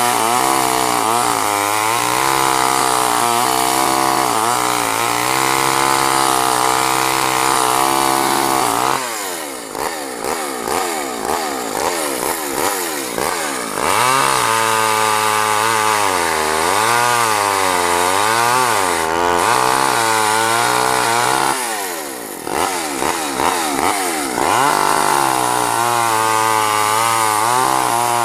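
Craftsman two-stroke chainsaw running at high revs, its pitch wavering under load as a dull chain gnaws through wood. About a third of the way in the revs fall away to a low, uneven running for a few seconds before it is throttled back up, and the same happens again near the end.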